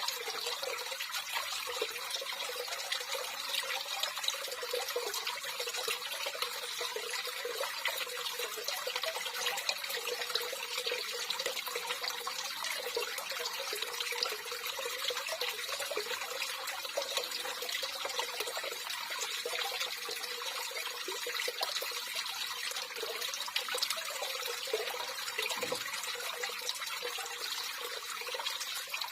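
Running water trickling and splashing steadily, an even rush with many small droplet ticks and no let-up.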